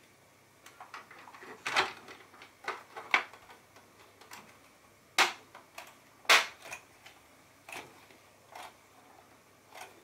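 Hard plastic parts of a small circulator fan clicking and knocking as it is put back together by hand: the fan blade fitted and the housing reassembled and handled. The taps are irregular, with the loudest knocks about two and six seconds in.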